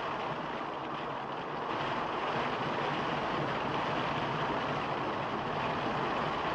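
Steady rush of fast-flowing water pouring out of a concrete culvert.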